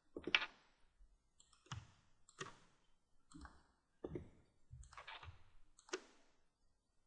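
Faint computer mouse clicks, about seven at irregular intervals, as lines and points are selected on screen.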